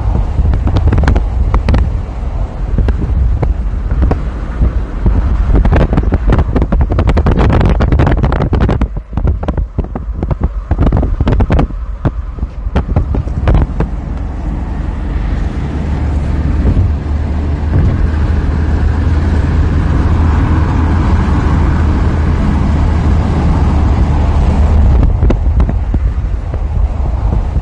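A loud, low rumble with wind buffeting and crackling on the microphone through the first half. From about 15 s in, a steady, even drone in the middle pitches joins it.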